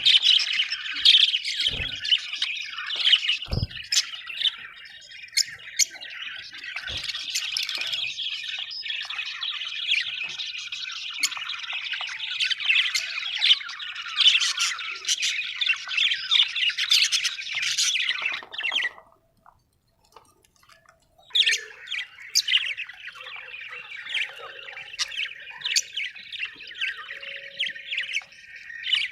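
A flock of budgerigars chirping and chattering: a dense, continuous warble full of sharp squawks and tweets, with a couple of low thumps in the first few seconds. About two-thirds of the way in it drops out for about two seconds, then resumes a little quieter.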